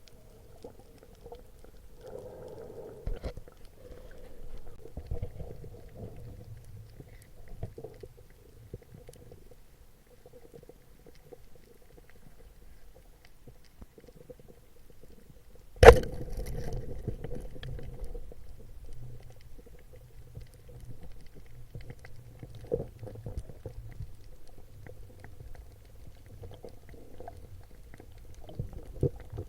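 Muffled underwater ambience, a low rumble with a faint steady hum and scattered soft crackling. One sharp, loud crack comes about halfway through.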